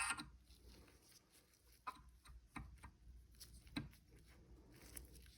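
Faint, scattered clicks and light knocks of steel transmission parts being handled during gearbox assembly, about four separate taps over a few seconds.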